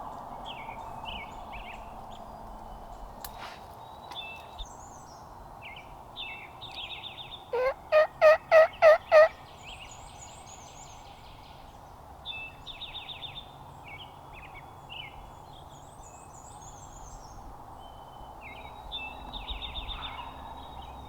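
A loud, close series of about seven turkey yelps, evenly spaced, a hunter's turkey call calling to a tom, sounding once near the middle. Songbirds chirp and sing throughout.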